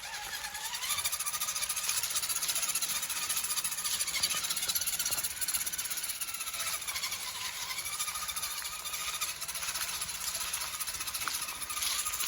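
RC rock crawler's electric motor and geared drivetrain whining under throttle, the pitch rising and falling as the truck speeds up and slows over the trail, over a steady hiss.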